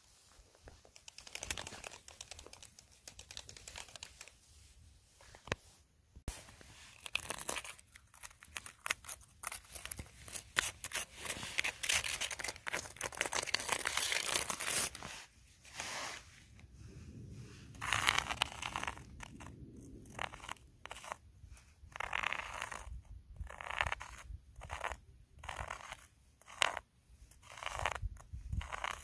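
Footsteps crunching in snow. There is a dense stretch of crunching partway through, then an even walking rhythm of separate crunches in the second half.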